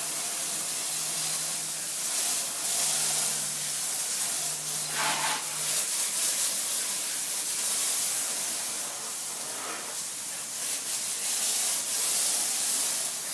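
Hose spray hissing steadily against a golf cart's tires and wheel wells, the water splashing off the wheels onto the wet floor. A faint low hum runs underneath and stops a little before halfway through.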